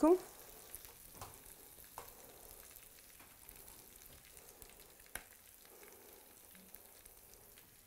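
Freshly baked cheese-filled breads on a hot metal baking tray sizzling faintly, with a few light ticks as chopped bacon is dropped onto them from a small glass bowl.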